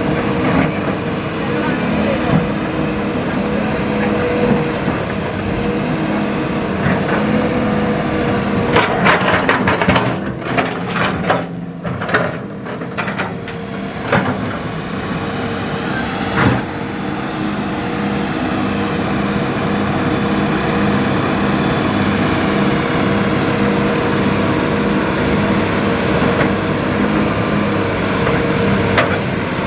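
Hitachi EX200-5 excavator's diesel engine running steadily under load. From about 9 to 14 seconds in comes a burst of clattering knocks as river stones strike the steel bucket or the truck bed, and there is one more knock a couple of seconds later.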